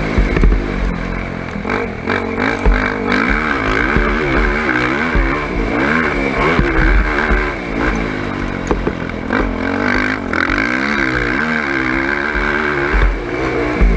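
Sport ATV engine being ridden hard, its pitch rising and falling again and again as the throttle opens and closes, with low thuds and clatter underneath.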